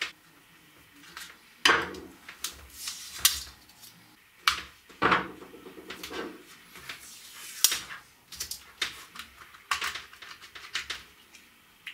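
Plastic housing of a Dremel 3000 rotary tool being worked open by hand: an irregular run of sharp plastic clicks and snaps, with a few short scrapes, as the clip-together shell halves come apart.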